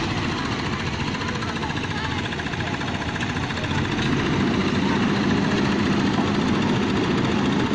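Engine of concrete-pouring machinery running steadily with a rapid pulsing, joined by a steady low hum about four seconds in.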